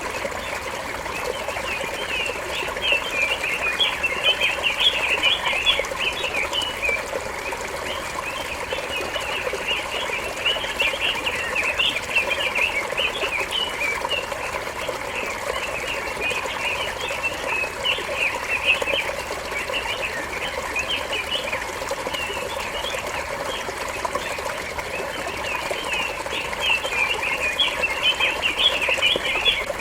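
Small songbirds chirping and twittering, many short calls overlapping without pause, over a steady soft hiss.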